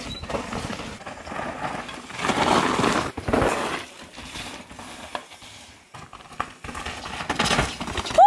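Mountain bike tyres crunching and rattling over a rocky dirt trail, the sound swelling and fading as the bike rolls over rocks and roots. A short, loud rising-then-falling cry comes right at the end.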